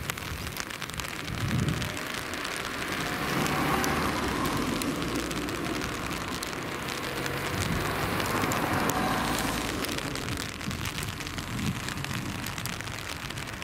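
Cars driving past on the road over an open level crossing. Their tyre and engine noise swells and fades twice, once about four seconds in and again about nine seconds in, over a steady hiss.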